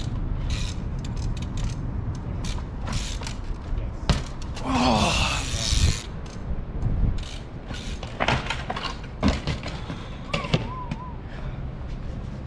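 Trials bike hopping on its back wheel: repeated sharp knocks of tyre and frame on the pavement with ratcheting freewheel clicks, and a longer scraping burst about five seconds in. Later the chain snaps and the rider and bike come down on the pavement.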